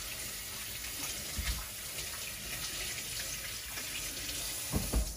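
Water running from a tap into a sink as hands are washed under it, a steady rushing stream with a couple of soft knocks.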